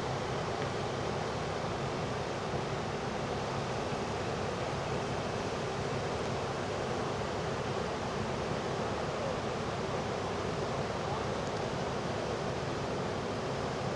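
Hurricane-driven surf breaking and washing at a jetty, with wind, heard as a steady, unbroken rush of noise.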